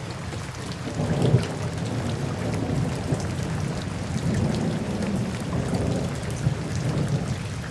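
Steady rain with low thunder, a rainstorm sound.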